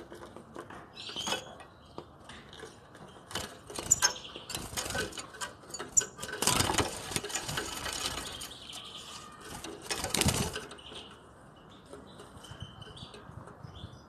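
Caged goldfinches moving about in a wire cage: rustling and fluttering with scattered knocks, two longer noisy stretches in the middle, and a few very brief high chirps.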